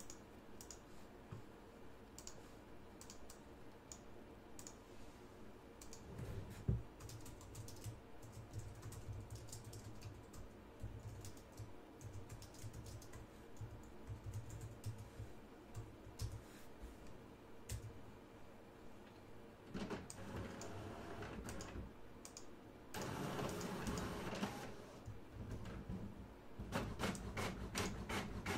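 Faint computer keyboard typing and mouse clicks. There is a thump about seven seconds in, and two longer stretches of rustling noise in the last third.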